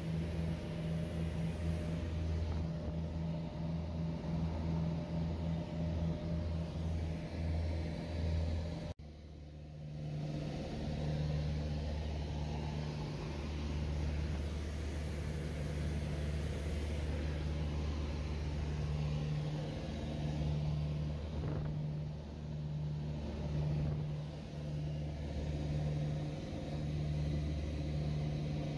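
Cabin drone of a light single-engine propeller airplane in cruise: the piston engine and propeller give a steady low drone with a pulsing throb. The sound breaks off briefly about a third of the way in, then resumes the same.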